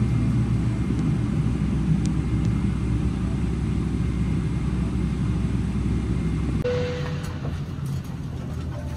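Steady low rumble of airliner cabin noise aboard a Boeing 777-300ER. About seven seconds in the sound changes abruptly to a slightly quieter rumble, with a short single tone and a few faint clicks.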